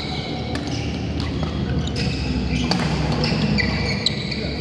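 Badminton doubles rally: rackets hitting the shuttlecock with several sharp cracks, the loudest about four seconds in, and court shoes squeaking on the mat.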